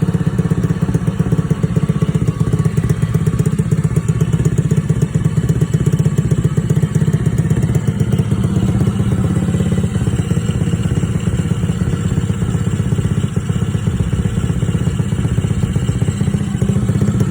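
Small engine idling very rough, with a dense, rapid pulsing beat. Its spark plug came out very black, which the owner takes to mean it is probably burning oil.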